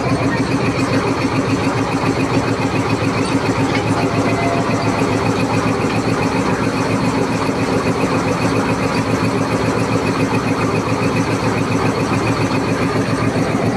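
Diesel-electric locomotive's engine idling, heard close beside its hood, a loud, steady, even throb.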